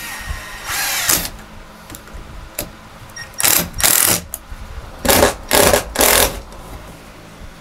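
Cordless drill driving screws through a perforated metal pipe strap into wood framing, in about six short bursts of the motor.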